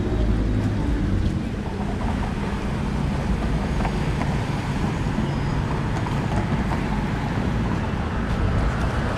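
Downtown street traffic: a steady low rumble of cars and other vehicles passing.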